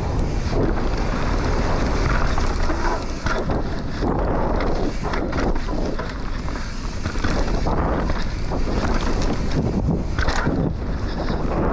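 Wind buffeting the microphone over the rumble and rattle of an enduro mountain bike descending a rough trail at race speed, with frequent knocks as the bike hits bumps.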